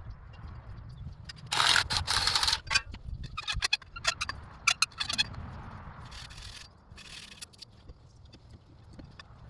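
Scraping and clicking: a loud scrape lasting about a second, then a run of sharp clicks, then two shorter scrapes.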